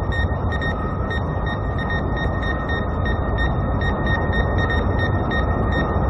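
Cartoon sound effect of spaceship engines: a steady, heavy rumble with a thin high whine held over it, pulsing slightly.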